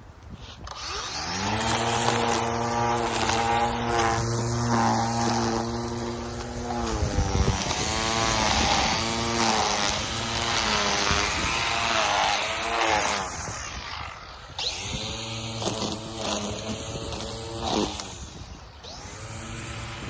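Small gas engine of a handheld yard tool running, its revs rising and falling again and again as it works. It starts about a second in and eases off briefly past the middle before revving back up.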